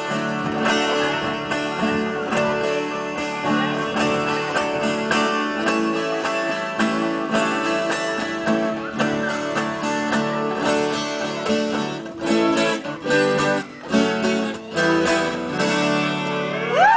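Viola caipira and several acoustic guitars playing an instrumental passage of música caipira, with plucked melody over strummed chords. In the last few seconds the playing breaks into a few separate strummed chords.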